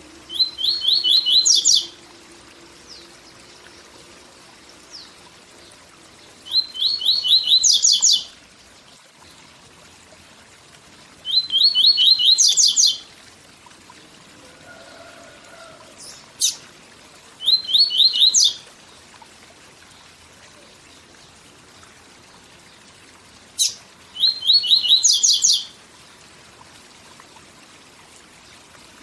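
Papa-capim seedeater singing its 'tui tui zel zel' song five times with pauses of several seconds between: each phrase a quick run of repeated high notes that climbs into a higher trill. A faint steady waterfall sound runs underneath.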